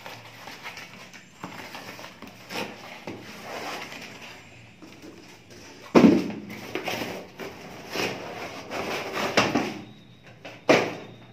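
Cardboard packaging being torn and handled: rustling and scraping, with several thumps of a boxed product knocking against and dropping into a cardboard carton, the loudest about six seconds in and another sharp one near the end.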